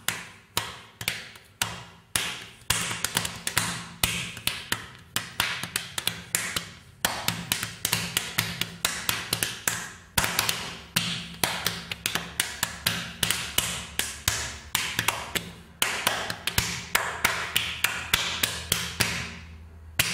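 A fast, even train of sharp taps, about three to five a second, over a low steady hum; the taps stop just before the end.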